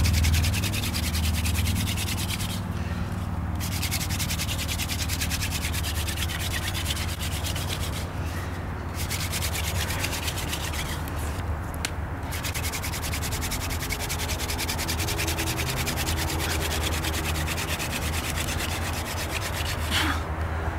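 Wooden hand drill spun between the palms, its tip grinding into a soft driftwood hearth board: a continuous dry rasping, broken off briefly three times. The friction is grinding out hot wood powder toward an ember, with light rather than hard pressure so as not to wear through the soft board.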